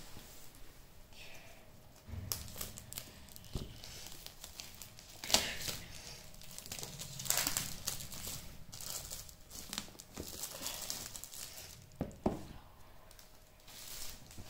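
Clear plastic shrink-wrap being torn and peeled off a cardboard box: irregular crinkling and crackling, loudest in a few sharp bursts, then the loose film crumpled in the hand near the end.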